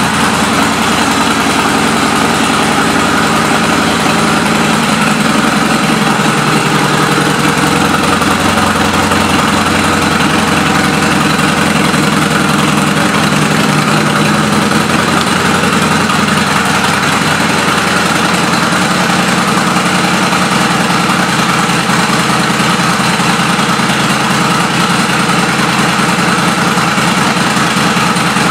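2000 Honda Magna's 750 cc V-four engine idling steadily through aftermarket exhaust pipes.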